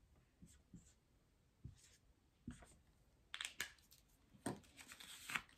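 Faint short strokes of a dry-erase marker writing letters and a check mark on a whiteboard, then louder rustling in the second half as a paper card is handled.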